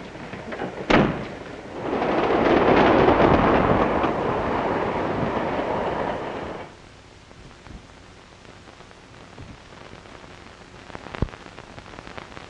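A sharp bang about a second in, then the loud rushing rumble of a train on the move for about five seconds, cutting off suddenly.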